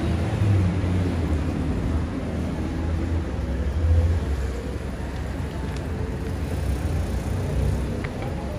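Road traffic: cars running past, a steady low-pitched sound without a clear start or stop.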